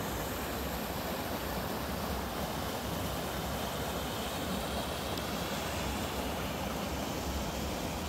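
Mountain stream water rushing over rock ledges and small cascades into a pool: a steady, unbroken rush.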